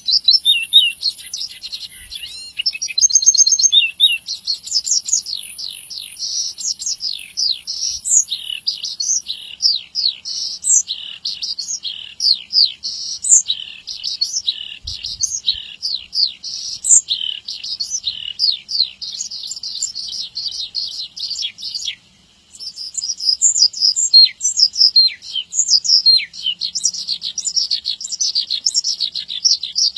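Javan bush lark singing vigorously: a rapid, unbroken stream of high chirps and quick downward-sweeping notes, with one brief pause about two-thirds of the way through.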